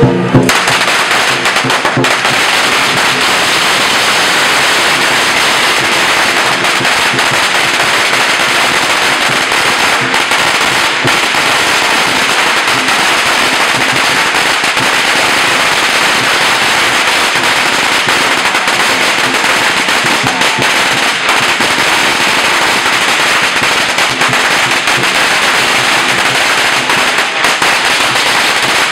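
A long string of firecrackers going off: a rapid, unbroken stream of small bangs at a steady loudness.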